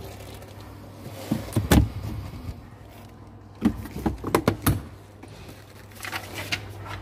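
Hollow knocks and clatters of a car's plastic boot trim being handled: a couple about a second and a half in, then a quick run of them around four seconds in.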